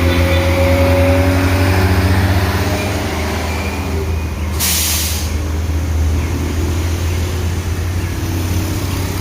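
Tour bus's diesel engine running as it climbs a hill, its deep drone loud at first and fading after a couple of seconds as it goes by. About five seconds in comes a short, sharp hiss of released air from its air system.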